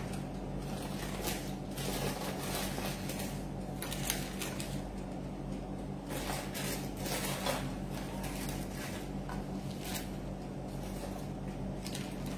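Light kitchen handling noises, scattered soft clicks and rustles, over a steady low hum.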